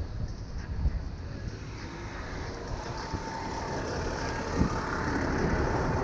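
Longboard wheels rolling over asphalt with wind buffeting the microphone. From about halfway through, a city bus running alongside adds a steady whine and the level rises as the rider draws level with it.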